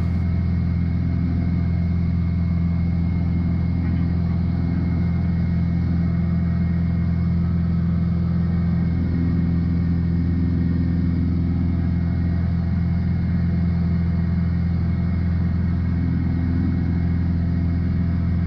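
Piper PA-46 Malibu's single piston engine and propeller droning steadily in cruise, heard inside the cockpit as an even low hum.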